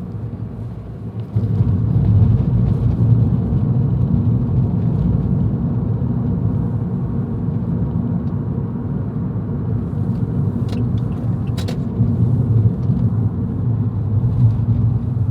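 Road noise of a moving car heard from inside the cabin: a steady low rumble of engine and tyres that grows louder about a second in. Two short clicks come about two-thirds of the way through.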